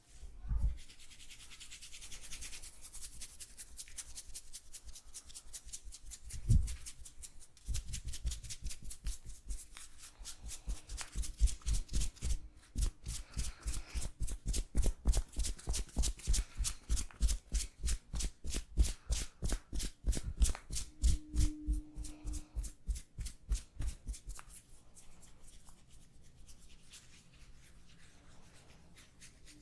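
Hands rubbing hair and scalp in a head massage, with a thump early on and another about six seconds in. From about eight seconds to twenty-four seconds comes a long run of quick, even hand taps on the head, about three a second, before it settles back to soft rubbing.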